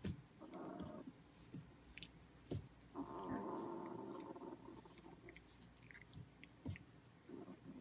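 17-day-old puppies play-wrestling, giving two small growls: a short one about half a second in and a longer one lasting over a second about three seconds in. Soft scuffling and little clicks come in between.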